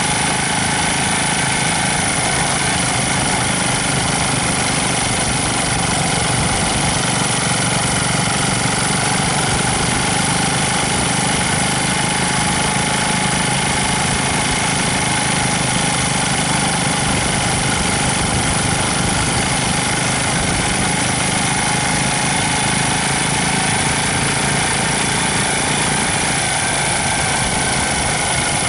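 Motorcycle engine running steadily at cruising speed, heard from a camera mounted on the moving bike, with an even engine hum over a constant rush of wind and road noise.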